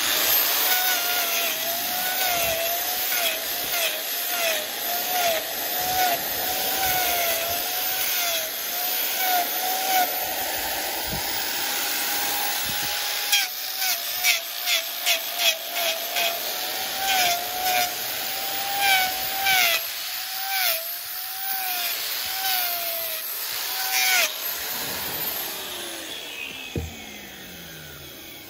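Electric angle grinder trimming horn from a lame cow's claw in search of a hidden lesion. The motor whine dips in pitch again and again as the disc is pressed into the hoof, with a quick run of scraping contacts in the middle. Near the end it is switched off and the whine falls away as the disc spins down.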